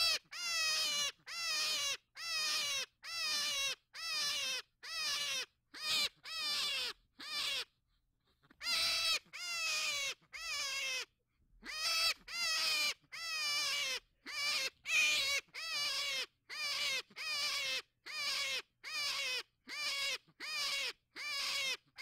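Hare crying: a long string of short, high, wavering squeals that fall in pitch, about one a second, with two short breaks.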